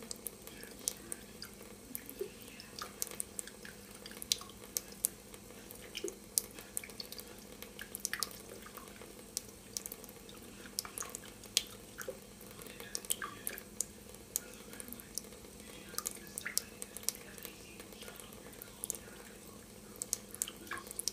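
Thin trickle of water from a kitchen faucet falling into a stainless steel sink, with irregular small splashes and drips several times a second.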